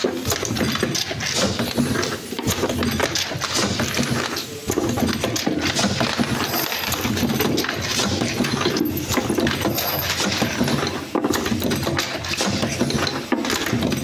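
Semi-automatic perfume filling and crimping machine running, with a dense run of clicks and glass vials clinking over steady machine noise.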